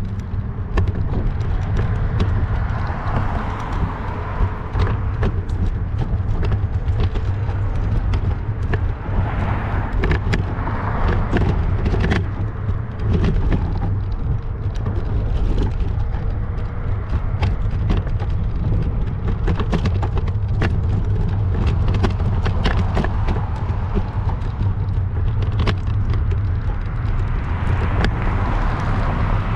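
Wind rushing over the microphone during a bicycle ride on a city street, with steady low rumble, frequent small rattles and clicks, and cars swelling past a few times.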